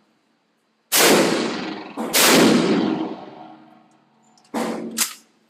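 Saiga 12 semi-automatic 12-gauge shotgun firing two loud shots about a second apart, each with a long echoing tail. Two quieter sharp reports follow near the end.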